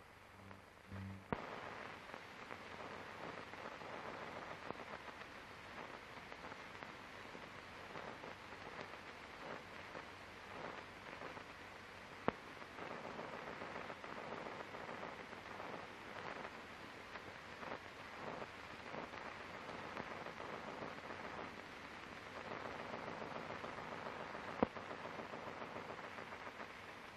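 Crackling hiss of an old optical film soundtrack with no clear sound recorded on it. Sharp pops break through about a second in, near the middle and near the end.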